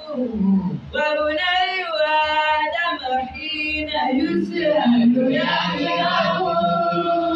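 A boy's voice chanting melodically into a microphone, in long held notes that bend up and down in pitch.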